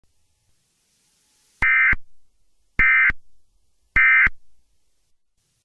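Emergency Alert System end-of-message (EOM) signal: three short bursts of screechy SAME digital data tones, each about a third of a second long and about a second apart, marking the close of the alert.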